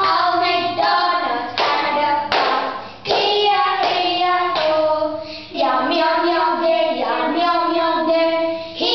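Two young girls singing a children's song together, with a few hand claps between phrases.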